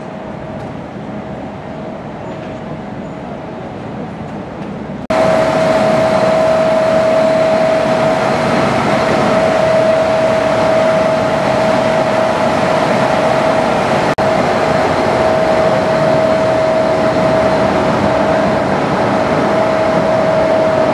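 Loud, steady noise of processing machinery inside a factory hall, with a constant high hum over it. The machinery includes a rotating drum carrying wet pulp. The noise starts abruptly about five seconds in, after a quieter steady hum.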